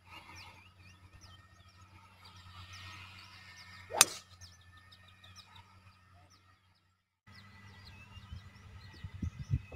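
A 3-wood striking a golf ball off the tee: one sharp crack about four seconds in. Birds chirp faintly throughout.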